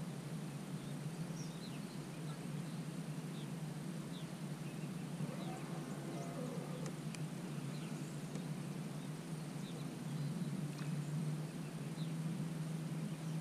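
Scattered short bird chirps over a steady low hum.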